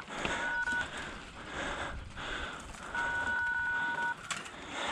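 A phone's keypad dialing tones, two beeps each made of two tones sounded together: a short one about a quarter second in and a longer one about three seconds in, over steady background noise. The phone is dialing by itself.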